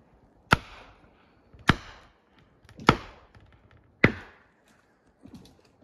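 Four heavy, evenly spaced blows struck at the base of a tree being felled, about one every 1.2 seconds, each with a short echo among the trees.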